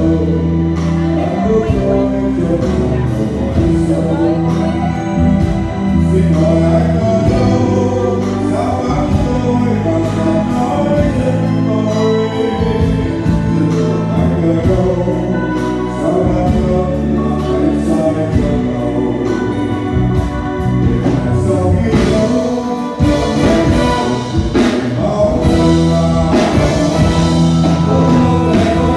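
Live band of electric guitar, bass guitar, drums and keyboards playing a slow ballad with a steady beat, with male voices singing over it through a PA system.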